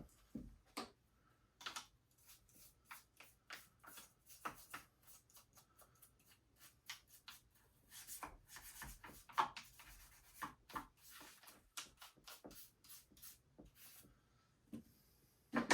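Hands working on a chainsaw with its side cover off, handling the bar and chain and scrubbing sawdust out of the housing: a string of short, irregular scraping and rubbing strokes.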